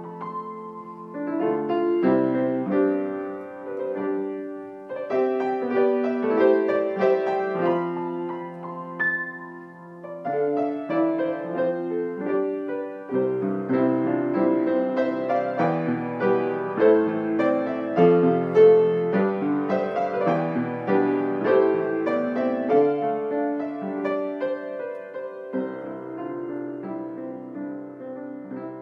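Background instrumental music: a gentle melody over chords, getting softer near the end.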